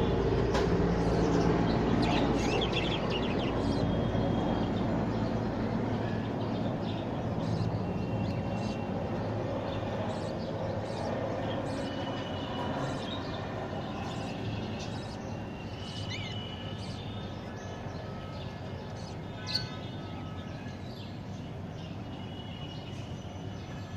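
Budgerigars chirping in short high calls throughout, over a low rumble that fades away over the first six seconds. One brief louder click comes near the end.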